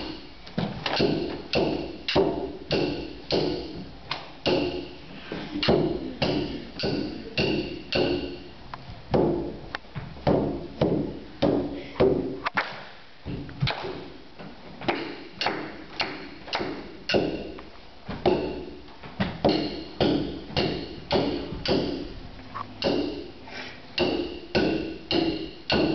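Hand-held frame drum struck with a beater in a steady beat of about two strokes a second, each stroke ringing on. There is a short break about halfway through.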